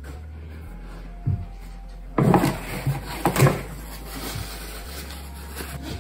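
A few short knocks and some rubbing as hard objects are handled, over a steady low hum.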